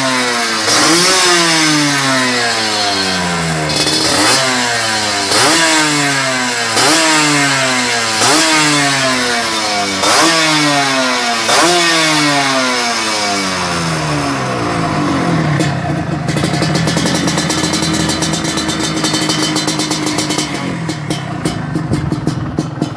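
Yamaha RXZ two-stroke single-cylinder engine through an aftermarket exhaust, revved in about eight quick throttle blips, one every second and a half or so, each rising and falling in pitch. For the last third it settles to a steady idle.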